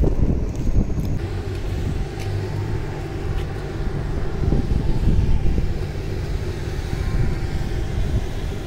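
Steady low rumble of road traffic going by on a city street.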